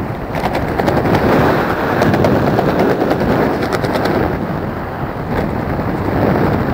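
Wind buffeting the microphone during flight under an open parachute canopy: a loud, steady rush with a few short runs of rapid crackling.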